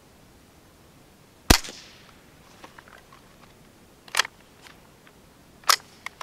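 A Ruger 10/22 fires a single CCI Quiet .22 LR round, a 710 fps subsonic load, with a sharp, quiet crack and a short echo about a second and a half in. The round is too weak to cycle the action and the case fails to eject. Two clicks follow as the action is worked by hand to clear it.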